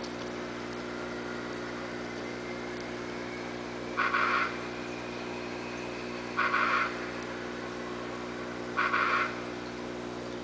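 Steady electrical hum of aquarium equipment. Three times, about two and a half seconds apart, a short, loud, harsh sound cuts in over it.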